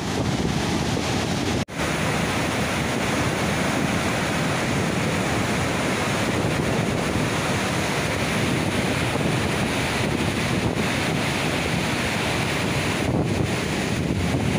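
Water rushing out through an open sluice gate of a river barrage in a steady, loud rush, with wind buffeting the microphone. The sound cuts out for an instant about two seconds in.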